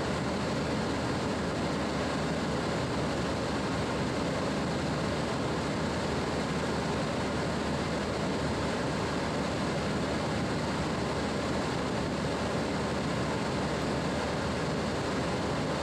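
Steady rushing cabin noise on a Boeing 767-300ER's flight deck while it taxis in, engines at idle, even and unbroken throughout.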